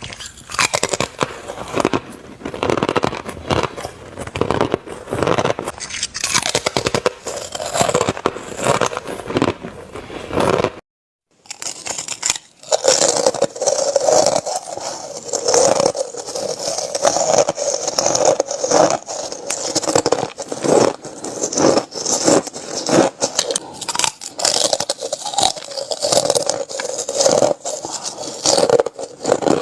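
Chip ice being bitten and chewed close to the microphone: a dense, continuous run of crunches and crackles. About eleven seconds in the sound cuts out for under a second, then the crunching resumes, brighter and crisper.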